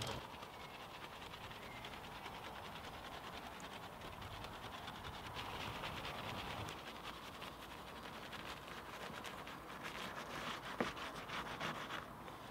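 Soft detailing brush scrubbing shampoo foam around a car's front grille and fog-light surround: a quiet, continuous scratchy rubbing, with one sharp click near the end.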